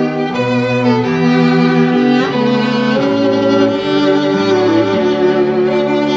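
String trio of two upper bowed strings and a cello playing held notes that change about once a second, with the cello moving underneath.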